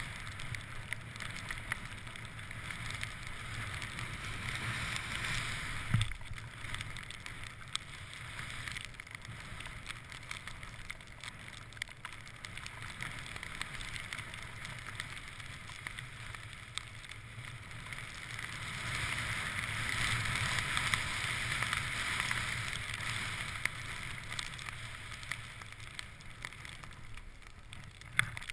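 Skis hissing and swishing through deep powder snow on a fast descent, with air rushing past the camera, swelling louder for several seconds in the second half. A sharp knock about six seconds in.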